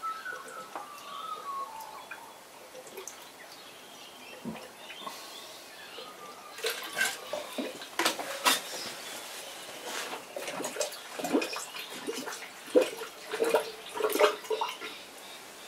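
Liquid splashing and trickling as a plastic measuring cup is dipped into a bucket of head gasket sealer mix and poured into a car's radiator, with irregular knocks of plastic that come thick and loud through the second half. Birds chirp faintly near the start.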